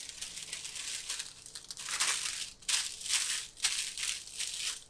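Sheet of baking paper crinkling and rustling as it is laid over pie-crust dough and smoothed down by hand, with several louder swells in the second half.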